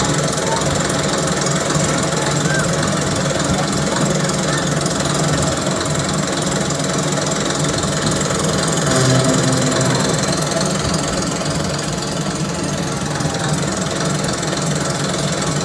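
Machinery of a spinning teacup-style children's ride running with a steady, rattling rumble as the cars turn around the rotating platform.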